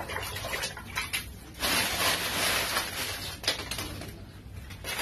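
Dry Indian almond (ketapang) leaves rustling and crackling as handfuls are lifted from a plastic basket and pushed into a bucket of water, with hands splashing in the water. Louder for a stretch a second and a half in.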